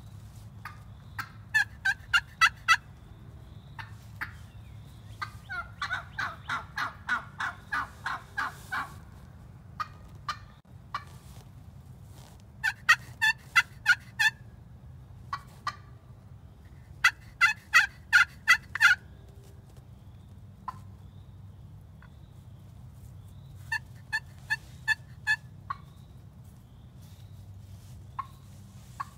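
Turkey yelping: runs of sharp, evenly spaced notes, about five to seven notes each, come four times. A longer, raspier run of about a dozen notes comes about six seconds in. Single clucks fall between the runs.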